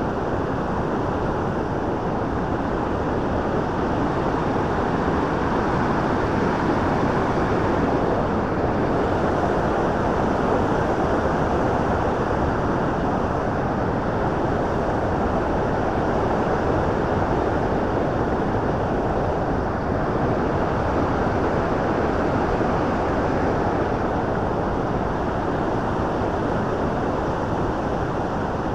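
Steady rush of white water from the Bow River's rapids and falls, an even, unbroken sound.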